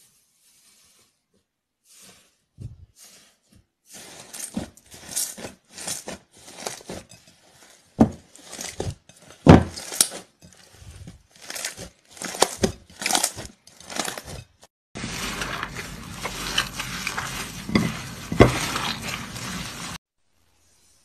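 Hands squeezing and pressing slime in a glass bowl: after a short quiet start, a string of short separate squishes, several a second, the loudest about halfway through, then about five seconds of continuous squishing that stops abruptly.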